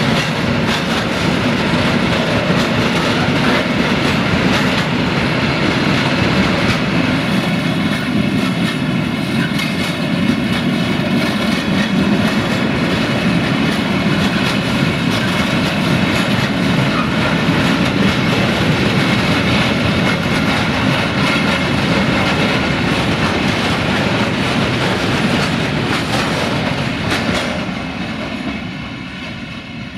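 Open-top freight wagons of a DB Cargo goods train rolling past close by: a steady rumble and clatter of steel wheels over the rails. The sound fades near the end as the train draws away.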